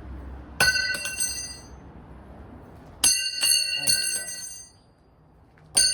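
Thrown steel throwing knives striking and clattering with a bright metallic ring, three times about two and a half seconds apart. Each strike is a quick rattle of several hits that then rings on for about a second.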